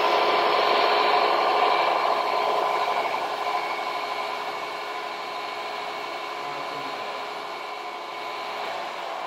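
Delta belt-and-disc combination sander running empty with a freshly fitted sanding belt: a steady motor hum and belt hiss while the belt tracking is adjusted. The sound gets quieter from about three seconds in, then holds steady.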